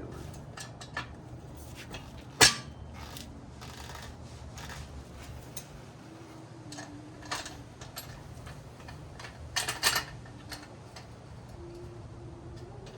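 Knocks and clicks from a manual tire changer's bead breaker being worked against a deflated motorcycle rear tire to break the bead from the rim, with one sharp loud knock about two and a half seconds in and a short cluster of knocks near the end.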